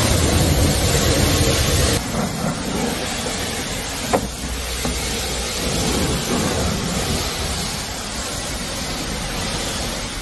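High-pressure car-wash wand spraying a steady jet of water against a car's body panels, a constant hiss and splatter. The level steps down about two seconds in, and there is a single sharp click about four seconds in.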